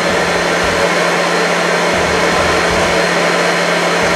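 Electric food processor running steadily, with a constant low hum under the whir of the motor, as it mixes flour into ground Oreo cookies, sugar and Nesquik powder.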